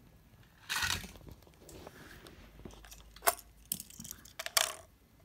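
Small clicks and clinks of die-cast Tomica toy cars being handled and set down on a plastic playset deck, with a short rustle about a second in and a few sharp clicks in the second half.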